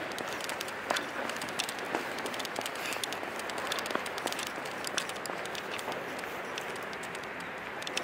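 Camera strap clicking irregularly against a Sony RX100 compact camera during a jog, several sharp clicks a second, over the steady rush of light wind and steps. It is picked up by the camera's built-in microphone under a furry wind filter, which keeps the low wind rumble out.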